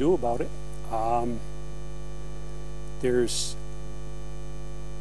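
Steady electrical mains hum, a low buzz with many even overtones, with a few brief snatches of voice about a second in and around three seconds in.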